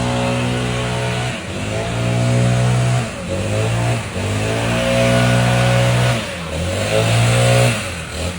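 A small engine running at high revs, its pitch dropping and picking back up about four times, as when the throttle is eased off and opened again or the engine is briefly loaded.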